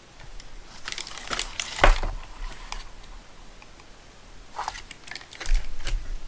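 Small clicks and knocks of hard plastic and metal RC crawler parts being handled and set down on a workbench, in two short clusters, with the loudest click about two seconds in and a few low thumps near the end.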